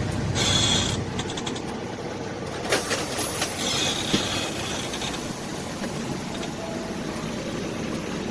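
Tractor-trailer running with a steady rumble and road noise, with a brief hiss near the start and a couple of sharp clicks around three and four seconds in.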